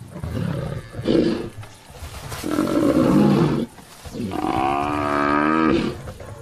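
An African buffalo bellowing in distress as lionesses bring it down, mixed with growling. There is a run of separate calls, the last a long, wavering, pitched bellow about four seconds in.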